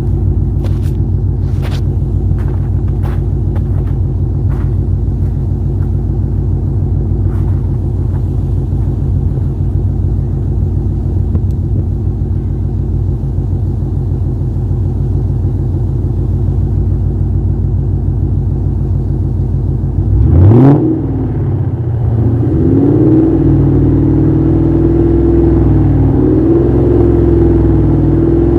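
Car engine idling with a steady rumble, then about twenty seconds in it is blipped sharply once and falls back, settling at a raised, held engine speed for the rest: a rev test being datalogged for a tune. A few light clicks early on.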